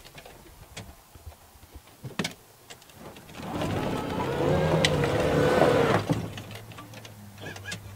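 Golf cart's drive motor whining while it moves over rough ground, with scattered knocks and rattles from the cart. The whine swells and wavers in pitch from about three and a half seconds in, then drops to a low steady hum about six seconds in.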